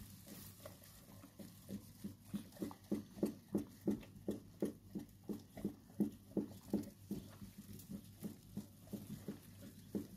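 Mother dog close to the microphone making quick rhythmic breathing or mouth sounds, about three a second, stronger in the middle and fading near the end.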